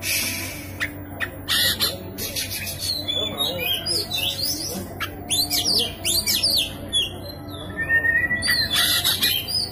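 Oriental magpie-robin singing hard: harsh rasping notes mixed with quick rising and falling whistled phrases, and one held whistle about eight seconds in.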